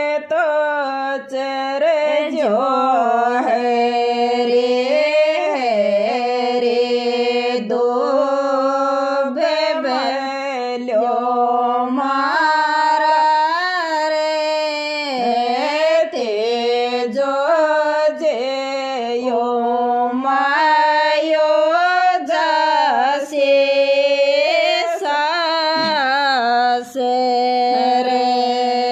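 A woman singing a Rajasthani Tejaji devotional folk song in long held notes that bend and waver in pitch, with brief breaks for breath.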